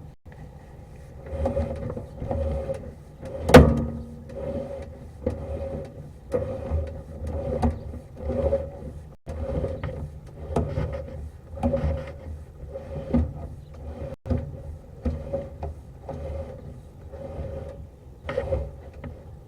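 Sewer inspection camera's push cable being worked in an ABS cleanout: repeated scraping and knocking about once a second over a steady hum, with one sharp knock about three and a half seconds in.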